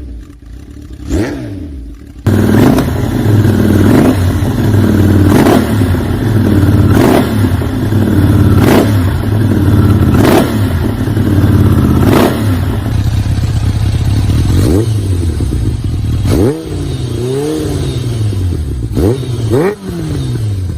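Superbike engines through loud exhausts: two short throttle blips, then a sudden switch to a loud, steady running note with a sharp crack about every second and a half. Near the end come several revs that rise and fall.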